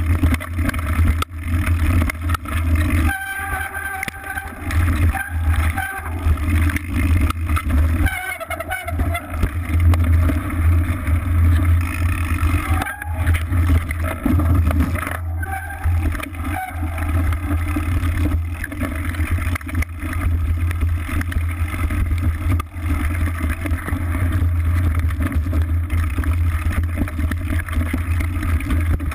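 Mountain bike riding over a rough trail, heard from a bike-mounted camera: a steady low rumble of wind and tyres with frequent knocks and rattles from the bike as it runs over the ground.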